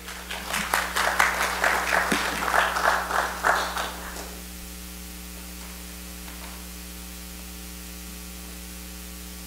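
A small congregation clapping for about four seconds, dying away, followed by a steady electrical mains hum.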